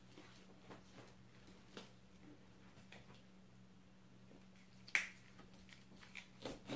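Kitchen knife cutting into the thick, spiky rind of a ripe jackfruit: faint scattered clicks and crunches, with one sharp click about five seconds in and a few more near the end.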